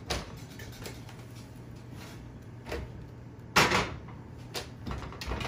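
Hot enamelled cast-iron Dutch oven handled with oven mitts and set down on a gas stove's grate: a few light knocks, then one loud clunk a little past halfway, and smaller knocks as the lid is handled.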